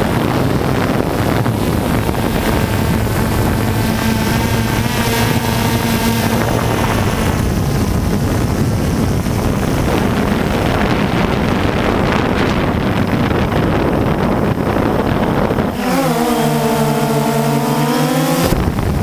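DJI Phantom II quadcopter's four brushless motors and propellers buzzing steadily, picked up by the GoPro it carries, mixed with wind rush over the microphone. The pitch shifts as the motors change speed, and near the end the wind rush drops away so the motor whine stands out, dipping and then rising in pitch.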